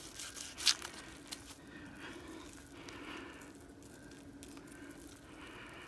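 Knife slicing through a whole cooked ham: faint cutting and squishing with a few small clicks, the loudest a little under a second in.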